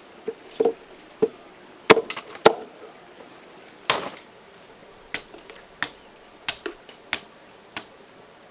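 Chopping on wood: about fourteen sharp, irregularly spaced strikes, the loudest a few around two seconds in.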